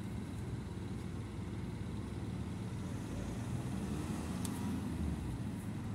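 Steady low background rumble, with one faint click about four and a half seconds in.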